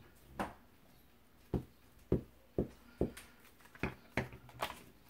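Short, irregular taps and knocks, about nine in all, as paper pieces and a glue stick are handled and pressed down by hand on a craft cutting mat.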